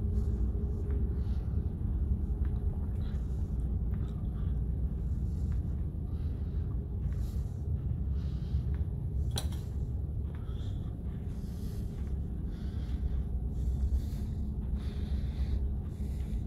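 Steady low rumble and hum of a ferry's engines and machinery, heard inside a passenger lounge while under way. Light handling ticks, and one sharp click about halfway through.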